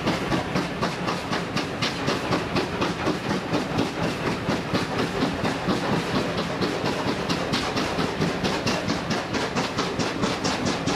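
Steam-hauled train running along at speed, heard from inside a passenger carriage: a steady rumble of wheels and carriage with a regular beat of sharp strokes about four times a second.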